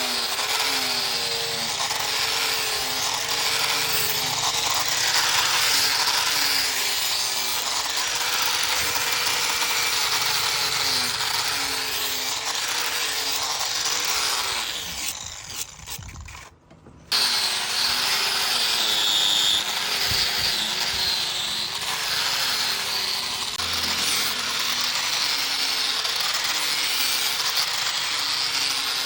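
Handheld electric power tool working material under load, its motor pitch wavering as the pressure changes. About halfway through it winds down, then cuts back in abruptly a second or so later and carries on.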